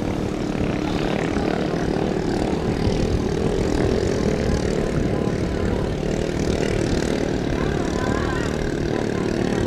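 Engines of small racing boats, built from underbone motorcycle engines, running at speed in a steady drone.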